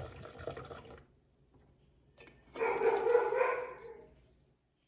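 A dog in the house gives one drawn-out call lasting about a second and a half, a little over two seconds in. A short muffled knock and rustle comes just before it at the start.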